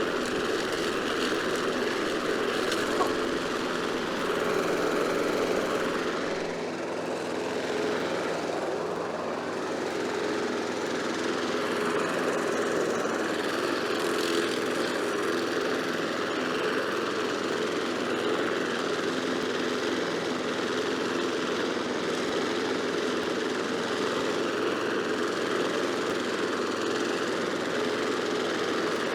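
Murray 22-inch mower's 5 hp Briggs & Stratton Quantum single-cylinder engine running steadily under load while mowing, dipping a little in level about six to ten seconds in. The owner thinks it needs a few more revs, as it is not quite blowing the grass bag up.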